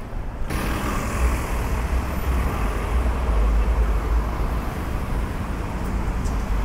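City street traffic: a steady low rumble of passing cars and buses, starting suddenly about half a second in.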